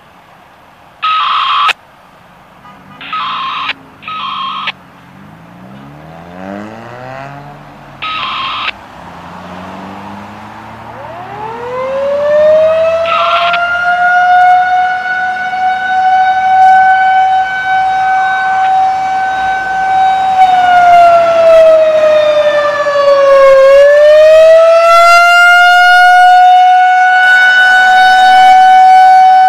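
A few short electronic beeps, then a Federal Signal 2001-130 outdoor warning siren winding up: a low rising growl climbs to a steady high tone about eleven seconds in. The tone grows louder, dips in pitch about two-thirds of the way through, then climbs back and holds.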